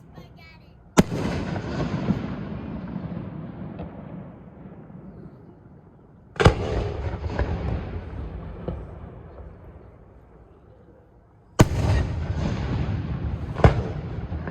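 Aerial fireworks shells bursting: four loud booms, one about a second in, one near the middle and two close together near the end, each trailing off in a long echo.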